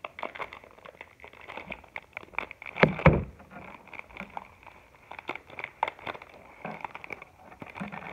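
Plastic candy wrapper crinkling and crackling as it is pulled and torn open by hand, with one loud rustle about three seconds in.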